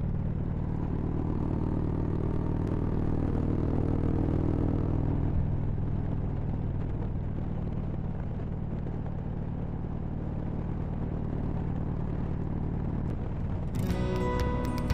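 Harley-Davidson Road Glide Ultra's V-twin engine running steadily at cruising speed, heard from the rider's seat. Background music comes in about a second before the end.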